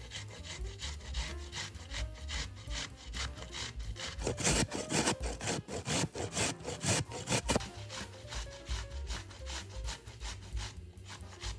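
Rhythmic scraping strokes, a few a second and loudest in the middle, over background music.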